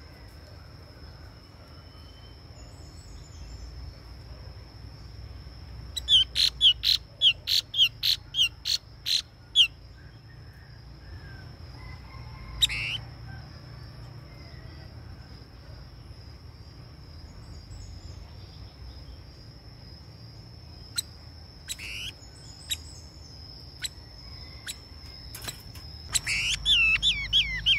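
Caged khướu bông cúc (a Vietnamese laughingthrush-type songbird kept as a decoy) calling. About six seconds in it gives a quick run of about nine loud, sharp, falling notes, then one more note a few seconds later, and near the end a fast burst of falling notes.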